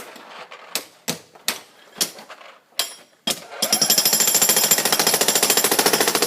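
Jackhammer breaking concrete. After a pause broken by about six separate sharp knocks, it starts rapid, steady hammering again a little over halfway through.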